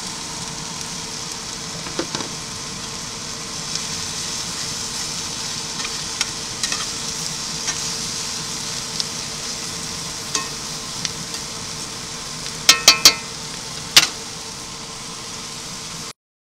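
Catfish chunks and vegetables frying in bacon grease in a cast iron skillet, a steady sizzle. Scattered small clicks run through it, with three sharp knocks in quick succession about 13 seconds in and one more a second later. The sound cuts off suddenly near the end.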